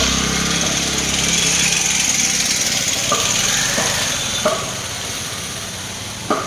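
An engine running under a steady rushing noise, its low hum dying away over the first two seconds, with a few short knocks in the second half.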